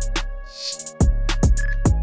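Background instrumental beat: deep bass-drum hits with long low tails and quick hi-hat ticks, with a short hissing cymbal-like swell about half a second in.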